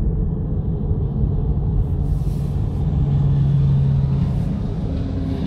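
Steady low rumble of road noise inside the cabin of a moving BYD Seal electric saloon, with a low hum that swells for a couple of seconds about halfway through.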